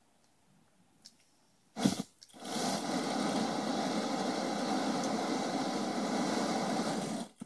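Homemade wrist-mounted flamethrower firing: a sudden loud burst about two seconds in as it lights, then a steady rushing hiss of the burning fuel jet for about five seconds that cuts off abruptly.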